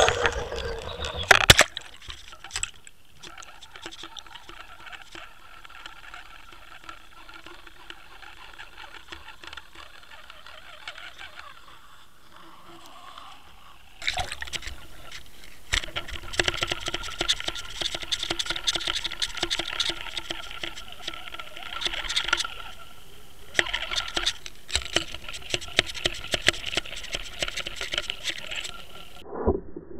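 Water gurgling and crackling around a camera as it goes under the lake surface, with bubbles rushing past the housing; the crackle grows denser and louder about halfway through as the camera submerges. A few loud knocks just at the start.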